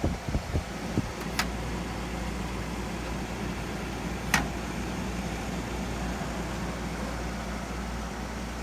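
2003 Friedrich QuietMaster 14,000 BTU window air conditioner running on high fan with its compressor on: a steady hum under an even rush of air. A few light knocks come in the first second, and two sharp clicks follow, about a second and a half and four seconds in.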